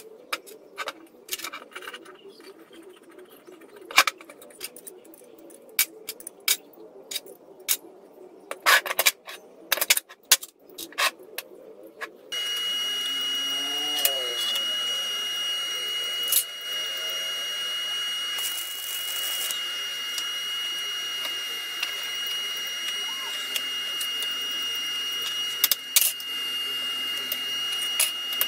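Steel plates and a bolt clicking and clinking against each other as they are handled. About twelve seconds in, a louder steady hiss with a thin high whine takes over, with a few light metal taps.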